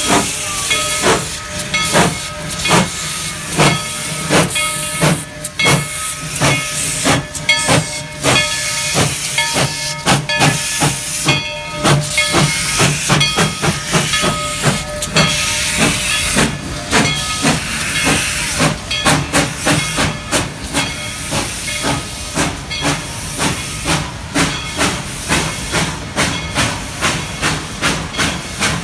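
Narrow-gauge steam locomotive working hard as it pulls a train away, its exhaust chuffing in an even rhythm of about two beats a second over hissing steam, heard from a coach close behind the engine. A steady whistle tone sounds over the chuffing through roughly the first half.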